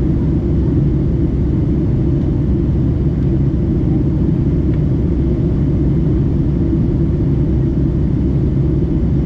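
Steady low rumble of a Boeing 757-200 airliner's engines and airflow, even and unchanging.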